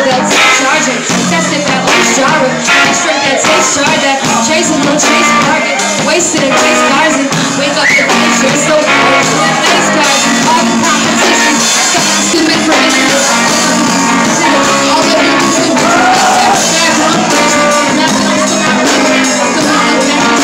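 A rapper delivering lyrics into a microphone over loud backing music, amplified through the bar's PA.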